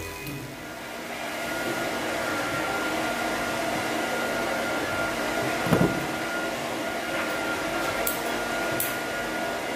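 Steady whirring of a motor-driven appliance with a thin high hum, like a dryer or fan running in a grooming room. A thump comes about six seconds in, and two short sharp clicks near the end as scissors trim the fur at a cat's paw.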